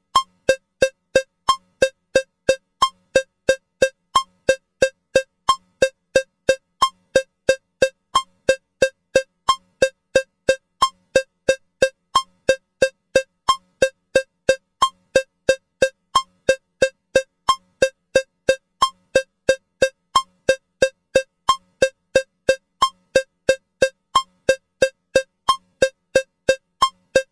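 Metronome with a cowbell sound ticking at 180 beats per minute, an even run of sharp ringing strikes, three a second.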